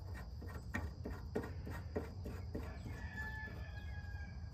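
A quick run of light metallic clicks, about four a second, as a brass air-line fitting is worked by hand into the port of a truck's air brake valve; the clicks stop a little over halfway through.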